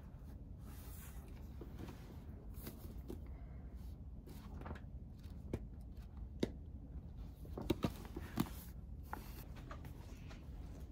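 Faint room tone with a few light knocks and clicks, most of them in the second half, among them a quick double click.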